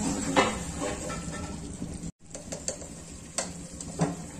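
A plastic spatula stirring chicken in a thick cream sauce in a steel pot, over a low sizzle of the simmering cream, with a few sharp clicks of the spatula against the pot.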